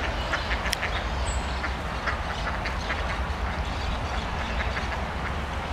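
Ducks quacking, short calls scattered through, over a steady low rumble.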